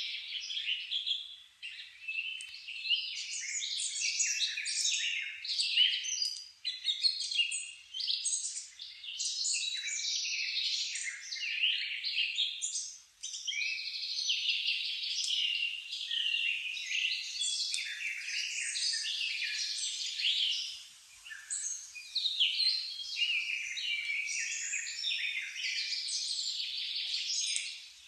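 Many small songbirds chirping and singing at once, a dense, busy chorus of overlapping high chirps and trills with only brief lulls.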